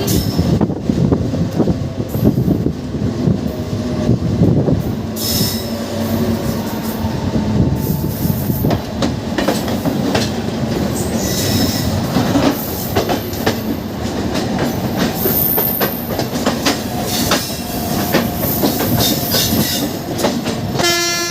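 Train running past on the rails: a steady rumble of wheels with clickety-clack over the rail joints and brief high wheel squeals now and then. Right at the end an electric locomotive's horn starts to sound.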